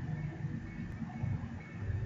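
Background music with a deep bass and a few faint held higher notes.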